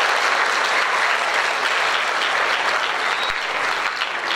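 A large audience applauding, many people clapping steadily.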